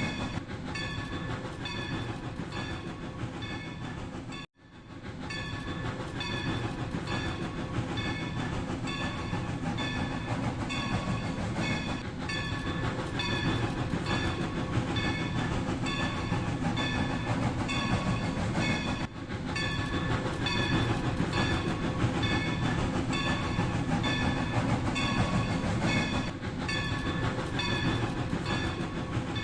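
Battery-powered Rail King toy train running, with a steady low motor noise and a regularly repeating pattern of short, high electronic tones. The sound cuts out abruptly about four and a half seconds in and comes back within a second, with a smaller break around two-thirds of the way through.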